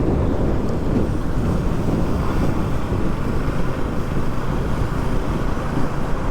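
Wind rushing over the microphone while a Bajaj Pulsar NS200's single-cylinder engine runs steadily under way.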